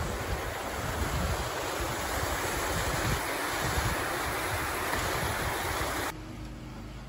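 Steaming hot-spring water rushing and splashing down a narrow stone-lined channel in a steady rush, with some low wind rumble on the microphone. It cuts off suddenly about six seconds in, leaving a quieter background.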